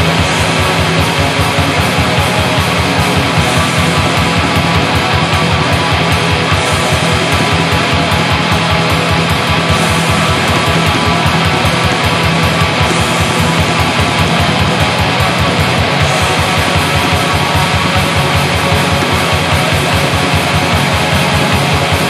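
Black metal recording: dense distorted electric guitars over a very fast, steady drum beat, with a cymbal wash coming in about every three seconds.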